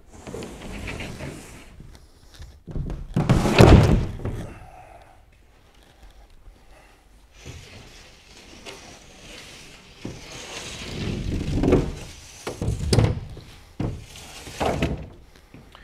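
A plywood lid being lifted off a wooden shipping crate and set aside: wood scraping and knocking against the crate, with a loud thunk about three and a half seconds in and a few more knocks near the end.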